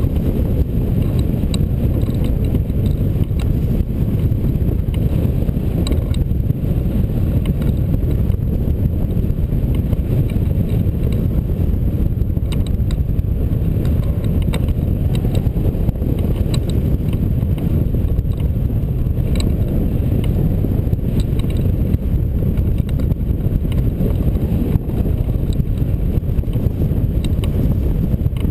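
Steady low rumble of airflow buffeting a camera microphone mounted on a hang glider in flight, with faint scattered ticks over it.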